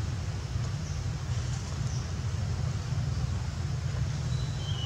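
Steady low outdoor rumble with a hiss over it, like wind buffeting the microphone. Near the end, a short high chirp glides downward.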